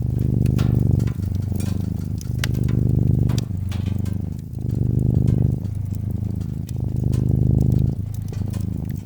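A domestic cat's low, steady purr, swelling and easing with each breath about once a second. Scattered sharp pops and crackles of a burning wood fire sound over it.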